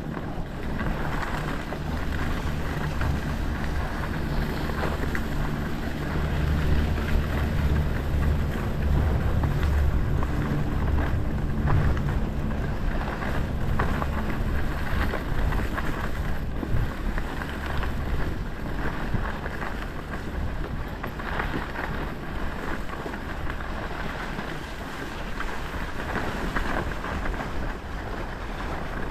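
Wind buffeting the microphone of a skier's camera during a downhill ski run, with the hiss of skis sliding through powder snow. The low rumble swells through the middle stretch and eases off later.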